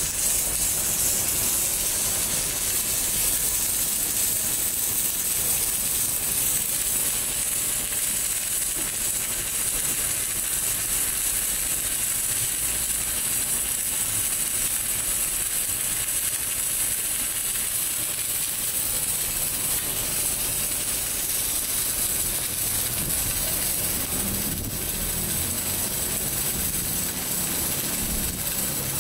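Welding in progress: a steady hiss that holds at an even level without a break.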